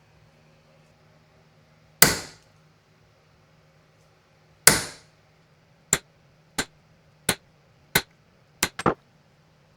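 Hammer striking metal in hand forging of 18k gold ring stock. Two heavy blows about two and a half seconds apart each ring out briefly, then six lighter, sharper taps follow at an even pace, roughly one every 0.7 s, with the last two close together.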